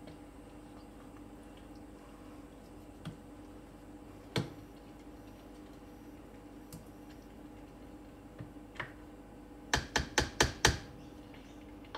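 A spoon knocking against a saucepan while risotto is stirred: a few single sharp clicks, then a quick run of about six knocks near the end, over a steady low hum.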